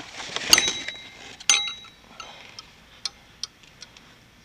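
Metal parts clinking: two sharp knocks with a brief ringing, then several lighter ticks.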